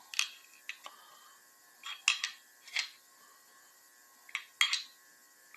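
A screwdriver prying a 383 small-block Chevy crankshaft back and forth in the block to check its end play (thrust clearance). It makes about ten short metallic clicks and scrapes in small clusters.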